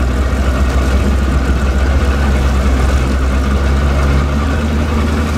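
Outboard motor of a Tracker Targa fishing boat running steadily under way, with a strong low rumble; its note shifts slightly about four and a half seconds in.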